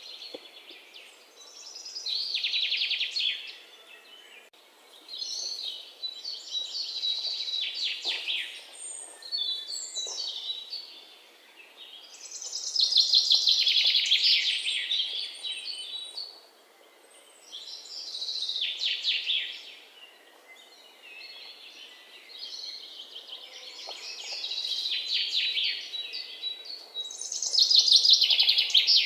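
A songbird singing in repeated phrases of quick trilled notes. Each phrase lasts a second or two and comes every few seconds, with short pauses between.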